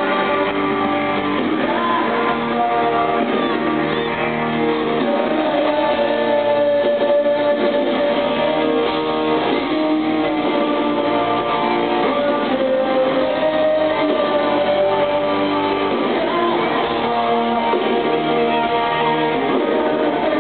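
Live rock band playing a guitar-led song, with sung vocals over the guitars, recorded from the crowd.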